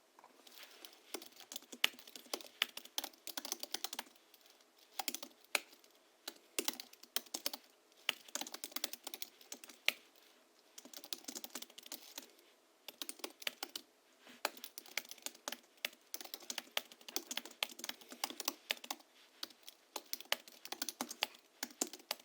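Typing on a Hansung GHL-5X keyboard tuned with Krytox 103/107-lubricated springs, 50 g rubber domes and a sound-absorbing sponge in the case: runs of rapid keystrokes, broken by short pauses of about a second.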